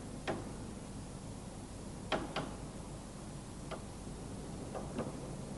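Half a dozen short, sharp metallic clicks at uneven intervals as staples are pried out of a convertible hood's corner bow with a small pointed tool, over a steady low hum.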